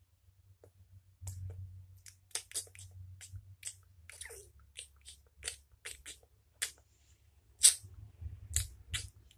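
Irregular sharp clicks and taps, roughly two a second, from hands working something close to the microphone, over a steady low hum. One click near the end is louder than the rest.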